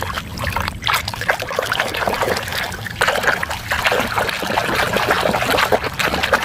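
Muddy water sloshing and splashing in a plastic basin as a hand scrubs a plastic toy animal under the surface: a continuous run of small, quick splashes.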